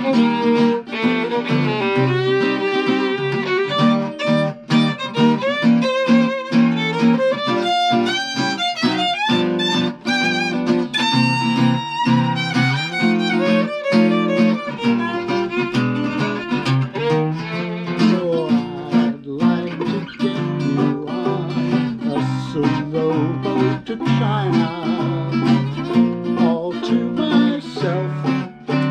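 A violin plays a melody solo with slides over swing rhythm chords strummed on an archtop acoustic guitar. Near the end the violin drops out, leaving the guitar chords.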